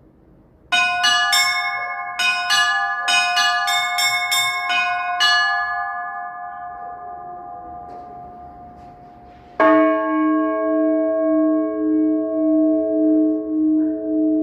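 Orthodox church bells: a quick run of about a dozen strikes on small, high-pitched bells, left to ring out and fade. About nine and a half seconds in, one larger, lower bell is struck once and hums on with a slow wavering beat.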